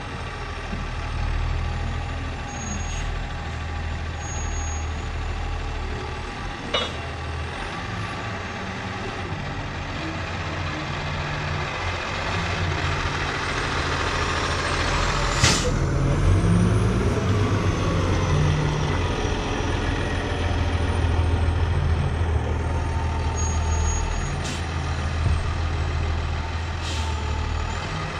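Engine of the machinery loading hay bales with a bale squeeze, running steadily and picking up in the middle. A few sharp knocks stand out, the loudest about halfway through.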